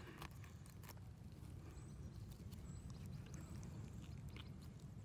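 Quiet low rumble with a few faint ticks as a knife cuts the heart out of a salmon.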